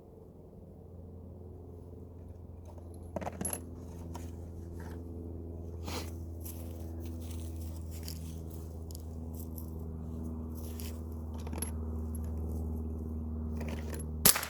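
Small metallic clicks and clinks from handling a Rossi .22 LR semi-automatic rifle while its rear sight is being adjusted, over a steady low hum. One sharp, loud crack near the end.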